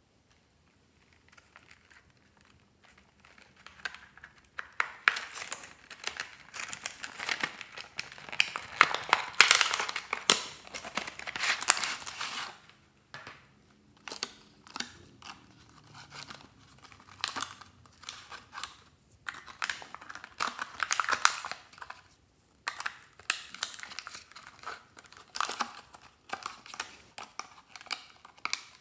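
Plastic crayon packaging crinkling and crackling as it is handled and crayons are pulled from the tray. It starts a few seconds in and comes in bursts, with short pauses.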